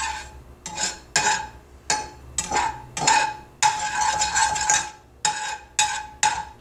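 A metal utensil scraping and clinking against a frying pan, stirring butter around to melt it. There are about two strokes a second, each leaving a short metallic ring.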